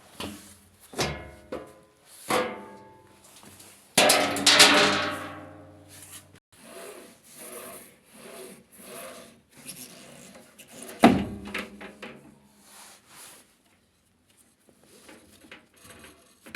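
Knocks and clatter of parts being handled, with a loud clang about four seconds in that rings on for a couple of seconds and a sharp knock near eleven seconds.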